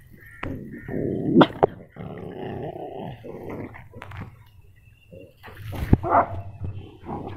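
Small dogs scuffling on sand, growling for a few seconds, with a few sharp barks breaking in.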